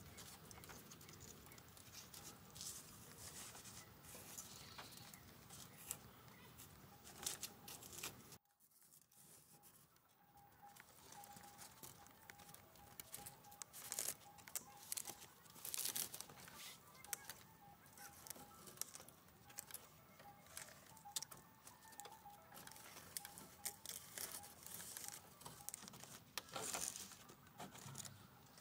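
Faint rustling and crackling with many small scattered clicks. The sound drops out for a moment about eight seconds in, and a faint, steady, pulsing tone runs through the middle part.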